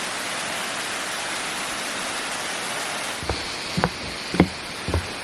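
A steady rush of falling water from the waterfall. From about three seconds in come regular footsteps, about two a second, as someone walks along the trail.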